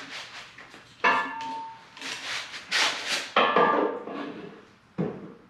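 Metal parts being handled: a sudden clank about a second in with a brief ringing tone, then rustling and another clank.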